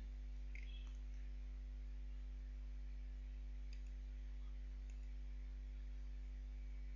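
Steady low hum, with a few faint computer mouse clicks.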